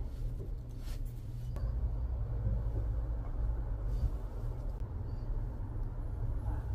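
Low steady rumble, with a few faint clicks about a second in.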